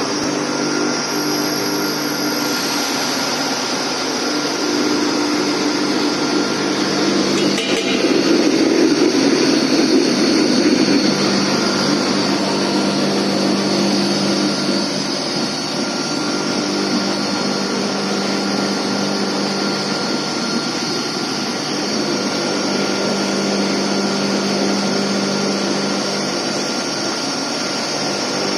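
Stainless steel colloid mill running steadily, its motor driving the rotor and stator as it grinds chopped green chili peppers into a paste. It gives a steady hum with a high whine above it, and grows louder for a few seconds about a third of the way in.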